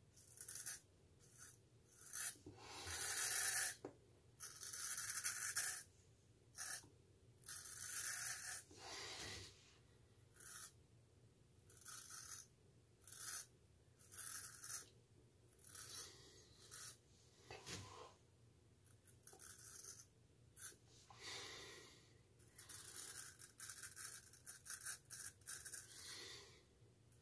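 Hollow-ground straight razor scraping through one day's stubble under shaving lather, in a long series of short strokes with brief pauses between them.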